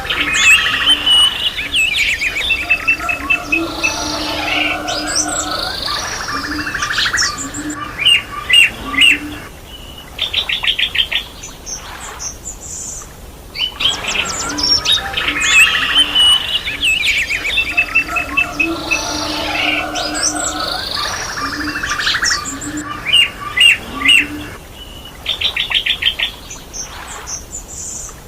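Several birds singing and chirping, with rapid trills and whistled phrases and a lower cooing call underneath. The same stretch of birdsong repeats about every 14 seconds, as a loop.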